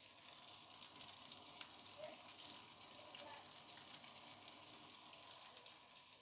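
Faint, steady sizzle of food frying in hot oil.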